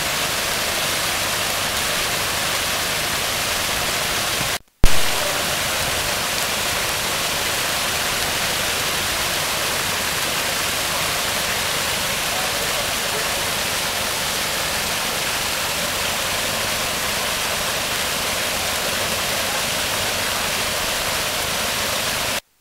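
Water of a landscaped rock waterfall pouring over stones into a pond, a steady rushing splash. The sound cuts out for a moment about five seconds in and comes back with a sharp pop.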